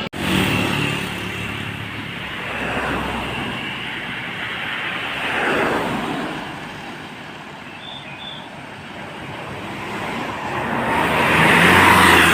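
Road traffic passing by: a vehicle rushes past about halfway through, the sound quietens, and another vehicle approaches, growing louder near the end.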